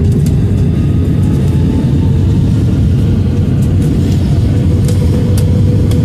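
Airliner cabin noise: the jet engines heard from inside the cabin as a loud, steady rumble with a faint steady whine.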